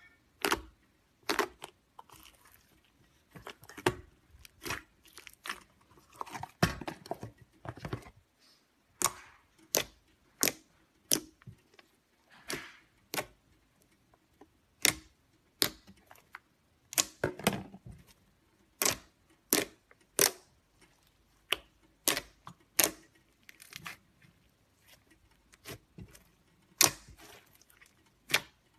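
Glossy purple slime with small beads mixed in, being poked, pressed and folded by hand in a plastic tub: sharp popping clicks come about once a second, irregularly, with softer squelching between them.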